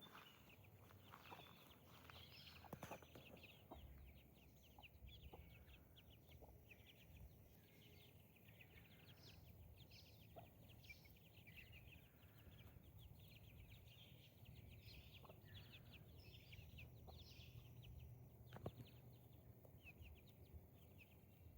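Faint, busy chirping of birds, many short calls in quick succession, with a few soft clicks.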